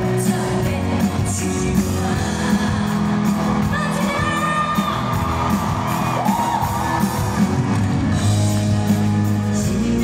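Live pop music from a band and a singer through a large outdoor PA system, with held sung notes over a steady bass and drum beat.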